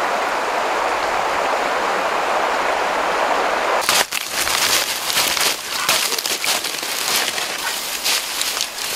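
A steady rushing noise, then, about four seconds in, bare feet crunching through dry fallen leaves and twigs in a dense run of crackles.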